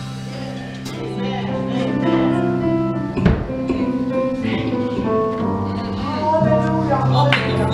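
Live gospel music from a church praise band, with sustained instrumental chords and a moving melody, and a sharp percussive hit a little over three seconds in.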